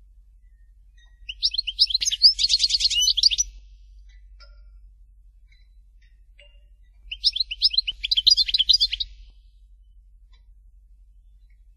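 European goldfinch singing: two phrases of quick, high twittering notes, each about two seconds long, with a pause of several seconds between them.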